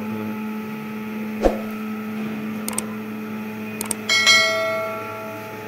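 Subscribe-button sound effect: mouse clicks, then a bell ding that rings and fades over about a second and a half, over a steady low hum. A single knock comes about a second and a half in.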